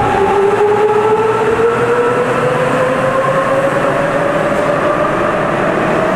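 Sapporo Municipal Subway 9000 series train accelerating out of the station, its traction motors whining in several tones that rise steadily in pitch as it gathers speed, over loud running noise.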